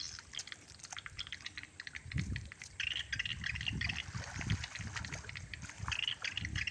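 Water dripping and splashing as a fishing longline is hauled by hand out of a river over the side of a boat, with scattered small clicks and a few low thumps.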